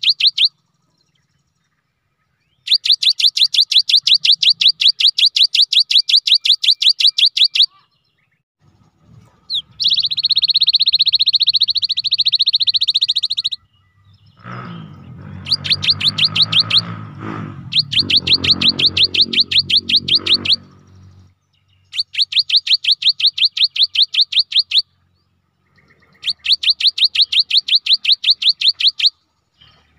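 Cinereous tit singing: bursts of fast, high repeated notes, each lasting a few seconds, with short pauses between them. Around the middle a denser continuous trill runs for about four seconds, followed by a lower-pitched sound lasting several seconds.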